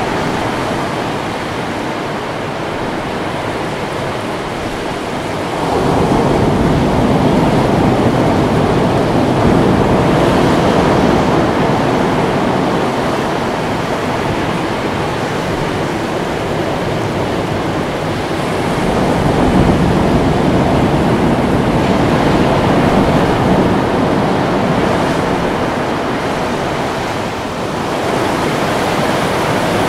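Ocean waves breaking and washing in a steady rush of surf, swelling louder about six seconds in and again around nineteen seconds.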